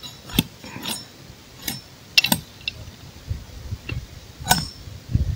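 Machete blade chopping and knocking at a wooden pole, trimming it into a staff: about half a dozen sharp strikes at uneven intervals, several with a brief metallic ring, and a few duller thuds.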